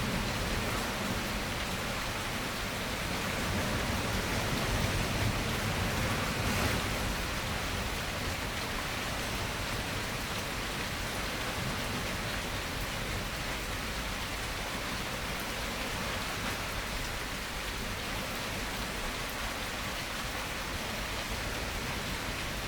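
Steady rain falling, an even hiss of rain on surfaces, swelling slightly a few seconds in.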